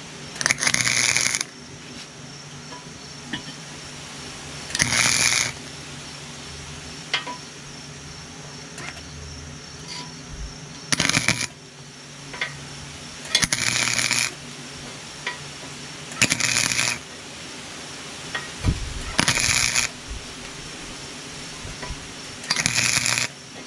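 Wire-feed welder laying seven short tack welds on a lawn tractor's rusty muffler, each a crackling sizzle of about half a second to a second, with a low hum between them. The welds patch a hole in the muffler to stop an exhaust leak.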